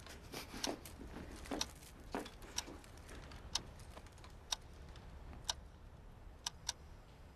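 Clock ticking: sharp ticks roughly once a second over a faint low hum.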